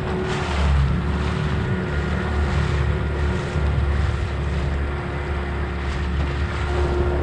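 Outboard motor of a small aluminium boat running steadily under way: a low, even drone with a steady hum, with water and wind rushing past.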